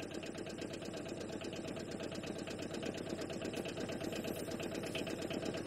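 Aixam Mega Multitruck's small diesel engine idling steadily with a fast, even beat.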